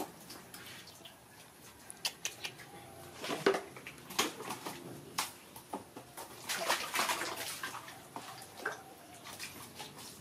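Soapy bathwater splashing and sloshing in a plastic tub as a baby monkey climbs on the rim and moves about in the water, in irregular bursts of splashes.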